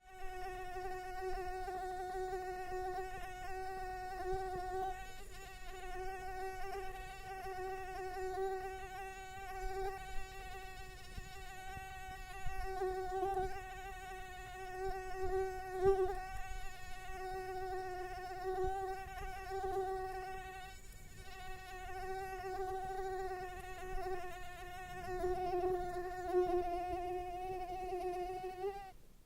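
Mosquito buzzing in flight: a steady high-pitched whine with many overtones, growing louder and softer as it moves about, and stopping abruptly at the end.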